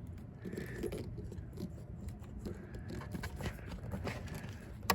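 Small scrapes and taps of hands working a plastic heater-hose quick connector onto its pipe, over a low steady rumble, with one sharp click near the end.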